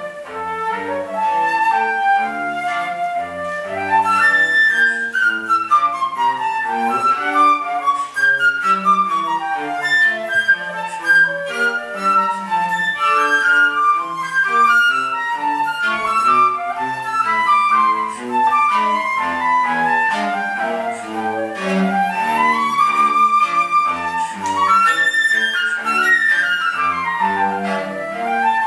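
Flute and cello duo playing: the flute runs in fast arpeggios sweeping up and down over a line of short cello notes.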